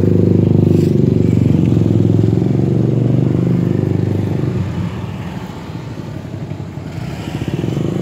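A motor vehicle engine running steadily close by. It is strong at first, fades about five seconds in, and builds again near the end.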